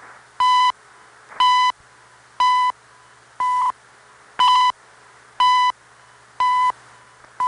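Seconds beeps of the CHU Canada time-signal station received on shortwave radio: a short high beep once a second, seven in all, over steady hiss and a low hum. Each beep marks one second of the time signal.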